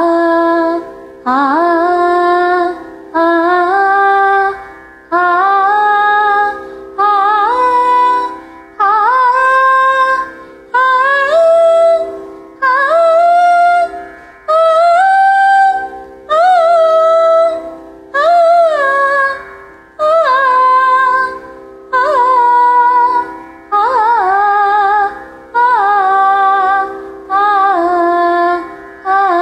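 A woman singing a Carnatic brigha exercise on the vowel "aa": short three-note phrases, one about every two seconds, climbing up the scale and then coming back down, over a steady drone.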